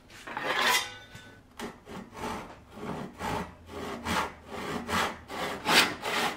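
Handsaw crosscutting a wooden board, in an even back-and-forth rhythm of about three strokes a second that grows louder toward the end.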